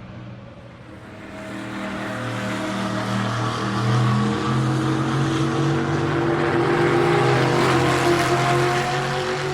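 NASCAR stock car's V8 engine running at speed. It grows louder over the first couple of seconds, holds at its loudest through the middle, and begins to fade near the end.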